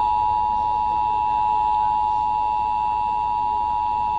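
Emergency Alert System two-tone attention signal: the 853 Hz and 960 Hz tones sound together as one steady, unbroken tone, heard over FM radio. It is the warning that an emergency alert message is about to be read.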